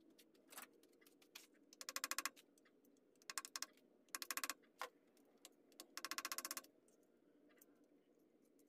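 Three quick runs of rapid light hammer taps on a screwdriver set against the aluminium case of a VW air-cooled engine at the oil pump, with a few single metal clicks between them.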